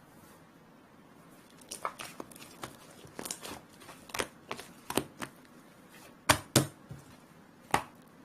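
Slime being pressed and squished by hand, giving an irregular string of sharp sticky clicks and pops that start after a quiet second or two; the loudest pops come in the second half.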